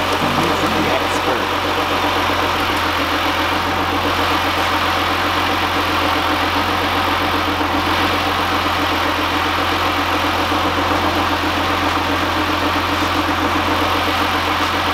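SUV engine idling steadily with the hood up, carrying a weird noise that the mechanics take for a worn transmission input shaft bearing.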